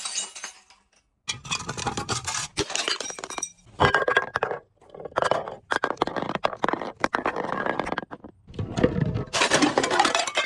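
Glass being broken and crushed: several bursts of crunching, cracking and clinking shards, separated by short pauses.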